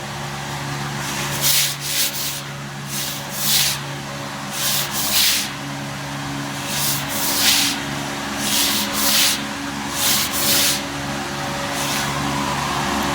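Repeated rubbing strokes of a hand sweeping over a car tire's tread, mostly in pairs about half a second apart, over a steady low hum.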